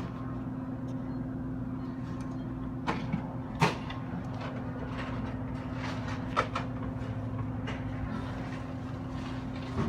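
Steady mechanical hum of running machinery, with a few sharp clicks and knocks like switches or panel covers being worked.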